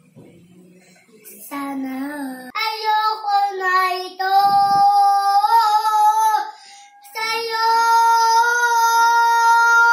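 A young boy singing in Tagalog, after a pause of about a second: a short low phrase, then two long sung lines with drawn-out notes, the last held steady for nearly three seconds.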